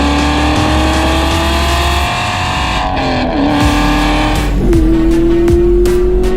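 A car's V8 engine under hard acceleration, its pitch climbing steadily, dipping around three seconds in and climbing again from higher up, over background music with a heavy beat.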